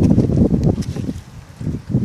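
Wind noise on the microphone: an uneven low rumble, strongest in the first second and easing off after that.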